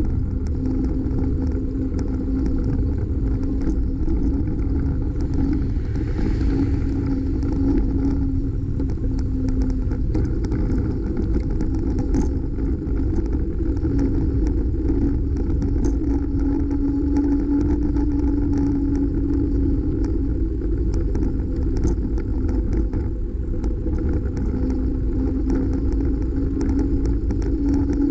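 Continuous low wind-and-road rumble from riding along a highway shoulder, with a steady hum that drifts slowly up in pitch. A brief hiss about six seconds in.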